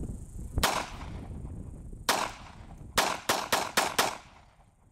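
9mm Beretta 92FS pistol firing seven shots: one about half a second in, another near two seconds, then a quick string of five at about four shots a second.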